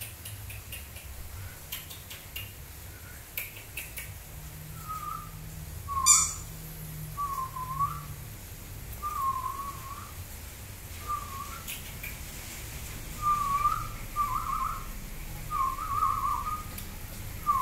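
A person whistling short, wavering notes, one every second or so, starting about four seconds in, with a sharp click about six seconds in.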